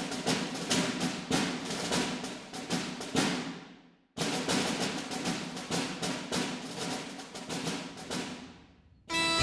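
Percussion music: a rapid drum roll with timpani-like rumble, played as two swells. Each swell fades away, and the second starts abruptly about four seconds in.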